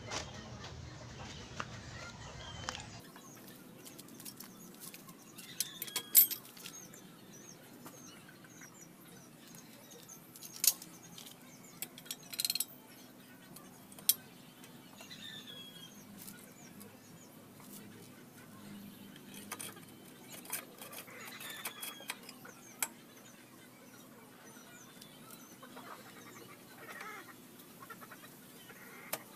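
Scattered sharp metallic clinks and knocks of a new aluminium swing arm and rear shock absorbers being handled and fitted to a Honda XRM125, the loudest about six seconds in. Birds chirp faintly in the background.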